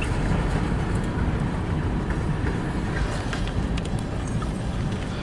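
Freight cars of a long mixed freight train rolling through a grade crossing: a steady low rumble, heard from inside a car.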